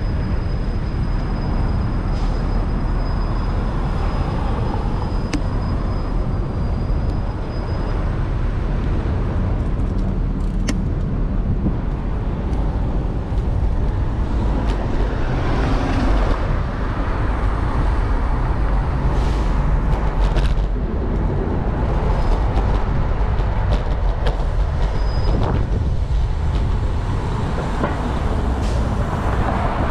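City street traffic, cars and buses passing, heard from a bicycle riding through the streets over a steady low rumble. A faint thin high whine sounds through roughly the first quarter, and there are a few brief clicks.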